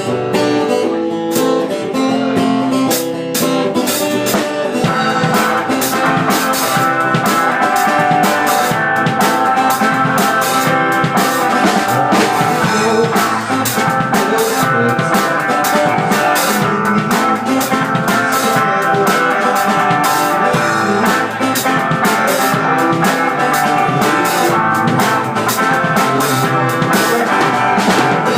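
A band playing live at a sound check, heard from right by the drum kit: drum kit and guitar, the music filling out about five seconds in.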